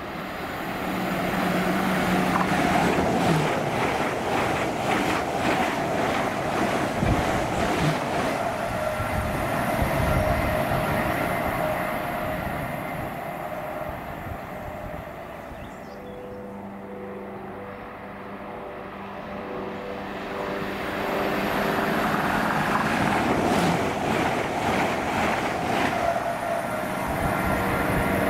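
A train passing through a station, with a rush of noise and clatter that swells loud early on, eases off around the middle, and builds again near the end.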